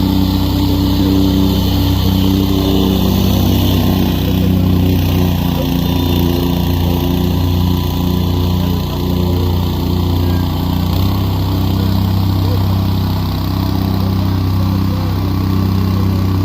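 Gasoline engine of a machine working the railroad ballast, running steadily, its note shifting about eleven seconds in.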